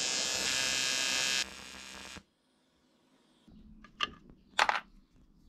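A steady electrical buzz that stops about a second and a half in, trailing off quietly, followed near the end by two sharp knocks.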